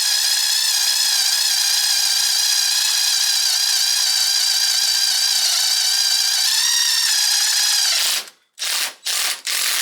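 Drill driver running steadily under load as a combined drill-and-tap bit cuts into 3/16-inch steel strap, its motor whine wavering slightly. About eight seconds in it stops, then runs in three short bursts.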